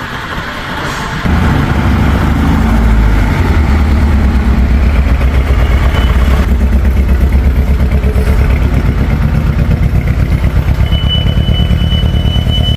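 BMW 420i's four-cylinder turbo engine running through an iPE aftermarket exhaust. It jumps suddenly louder about a second in, then runs on with an uneven, pulsing beat. The car has a misfire, which a mechanic traced to an ignition coil.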